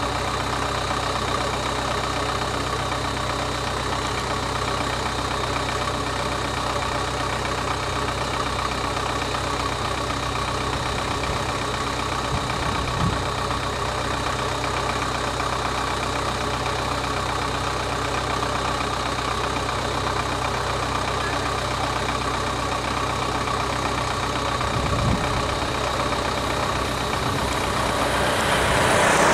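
Vehicle engines idling steadily, with two brief low bumps, one about halfway through and one near the end. The engine sound grows louder in the last second or two as an auto-rickshaw drives close by.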